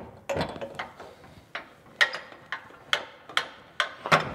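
Steel deck stand's axle being worked into the gauge-wheel mount of a John Deere mower deck: a string of sharp metal clicks and clinks, about one every half second and uneven in spacing.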